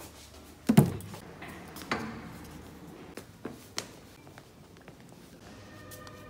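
A few handling knocks and thumps, the loudest about a second in, another about two seconds in, then two lighter taps; near the end, faint tones come in as a door is pushed open.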